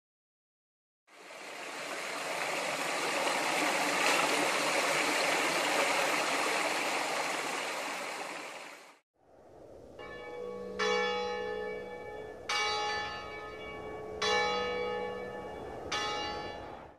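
Flowing water rushing steadily for about eight seconds, fading in and out. After a short break, a church bell tolls four slow strokes about a second and a half apart, each ringing on.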